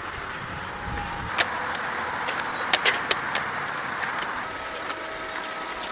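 Farm machinery running steadily, with a few sharp clicks and clanks between about one and a half and three seconds in.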